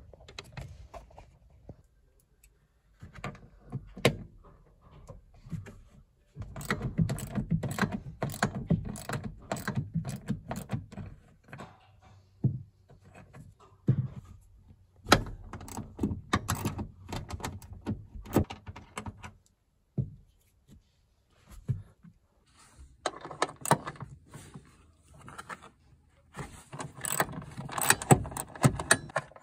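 Hand-tool work on a car's front seat: a string of separate knocks, clicks and metal clatter from tools and loose parts, with quieter rubbing between. Near the end comes a quick run of clicks from a socket ratchet on a seat bolt.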